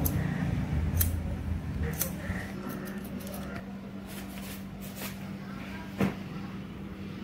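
Barber's scissors snipping wet hair, a few crisp snips about a second apart, over a steady low hum. A single louder click comes near the end.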